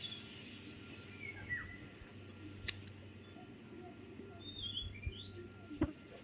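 Faint bird calls: short falling chirps near the start and again about four to five seconds in, with a few light clicks and a sharper click just before the end.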